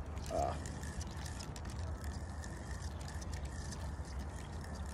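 Spinning reel being cranked to retrieve line, its gears giving a steady run of light clicks.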